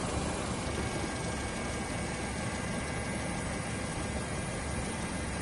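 Helicopter engine and rotor noise heard from inside the cabin: a steady rushing drone with a faint high whine.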